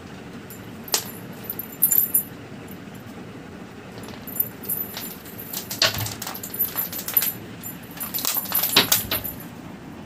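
Kitten pouncing on and batting a small red toy across a concrete floor: light clicks and jingles, a couple early on and then in quick clusters about four, six and nine seconds in.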